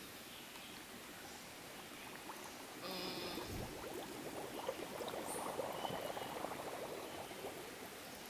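Plastic bottle fish trap held under water in a shallow stream, gurgling and bubbling as air escapes and it fills. The bubbling starts about three seconds in and fades near the end.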